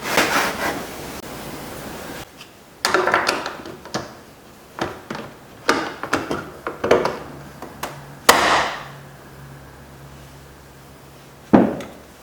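Scattered knocks, clunks and short scrapes of hand tools and plastic trim being worked on a car door. About eight seconds in comes one loud bang with a ringing tail, followed by a faint steady hum.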